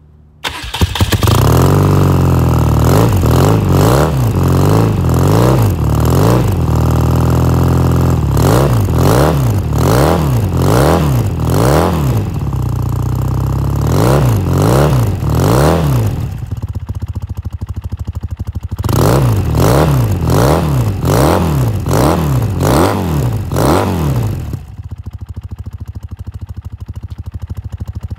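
A vehicle engine starts with a sudden catch and is revved up and down repeatedly in quick blips, drops to idle for a couple of seconds, is blipped again several times, then settles to a steady idle near the end.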